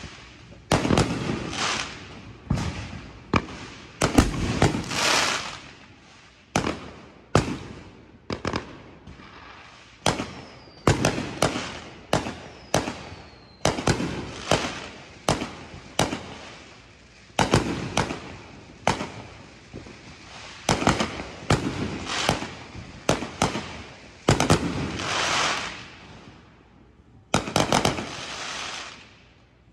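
Consumer aerial fireworks going off in a long run of sharp bangs, about one a second. Some bangs are followed by a longer trailing hiss. Two short falling whistles come about ten and twelve seconds in.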